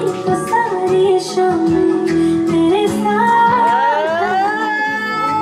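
Music: a song with a woman singing, holding long notes and sliding in pitch between them.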